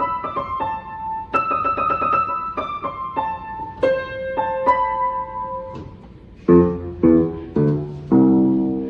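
Piano playing quick, repeated notes high on the keyboard. About six and a half seconds in it switches to loud low notes and chords, moving from a high sound to a low one.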